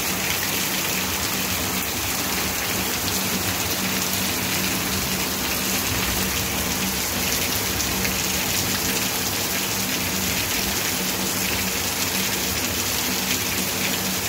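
Heavy rain pouring steadily onto concrete paving and standing water.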